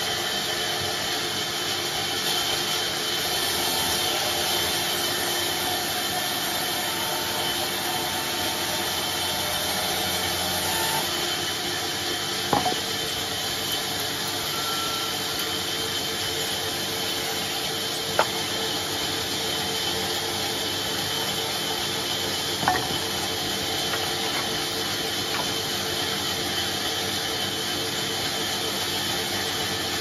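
Sawmill band saw cutting steadily through a teak log, a constant noise with a steady high tone running through it. Three short sharp knocks stand out, spread through the middle.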